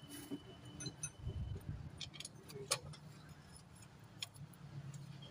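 Scattered light metallic clicks and clinks of tools and engine parts being handled, with one sharper click near the middle.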